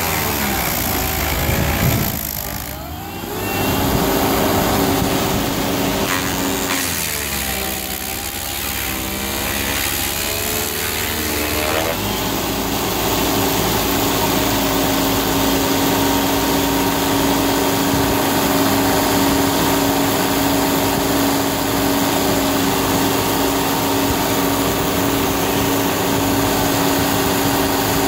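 Bandit self-propelled stump grinder running under load, its cutter wheel grinding into a log. The engine note sags and wavers as the wheel bites, around two to three seconds in and again for several seconds from about seven seconds in, then runs steady.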